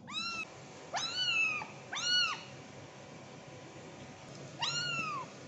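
Young kitten meowing four times: high-pitched mews that each rise and then fall in pitch, the last, near the end, a little longer than the others.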